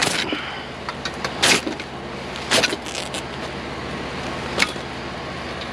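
Sharp snaps and clanks of a part being pried and ripped off discarded scrap by hand, about five in all, over the steady hum of an idling vehicle engine.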